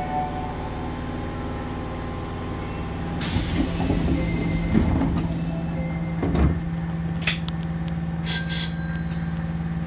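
Osaka Metro Sakaisuji Line subway train standing at a station with a steady low hum. A hiss of compressed air starts about three seconds in and lasts about a second and a half, followed by a thud around six and a half seconds and a short high beep near the end.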